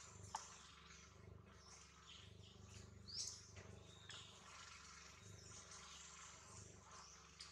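Faint outdoor ambience with a few short, high-pitched animal chirps, the clearest about three seconds in, over a low steady hum. A single sharp click sounds just after the start.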